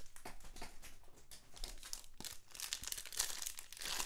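Foil wrapper of a Panini Prizm trading-card pack crinkling as it is handled, with faint rustling of cards; the scratchy sounds come more often near the end.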